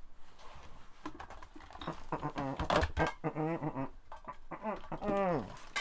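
A whining, voice-like call in several wavering phrases, the last sliding down in pitch. It is preceded by a few light clicks.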